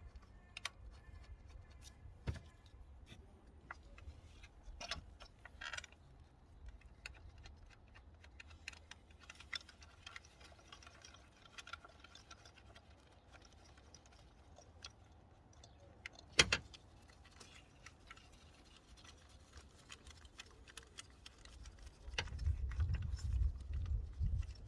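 Scattered metallic clicks and clinks of hand tools and engine parts being handled in a car's engine bay during spark plug and ignition coil work, with one sharper knock about two-thirds of the way in. A low rumbling handling noise comes in near the end.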